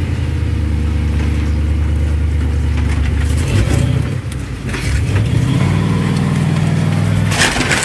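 Jeep engine pulling at steady revs on a trail, easing off about three and a half seconds in, then revving up again to a higher steady pitch. A loud noisy burst comes near the end.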